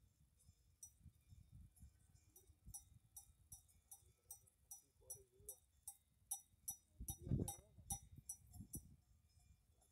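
Metal livestock bells clinking faintly and irregularly, several strikes a second, each with a short ringing tone, over a low rumble. A brief, louder low sound comes about seven seconds in.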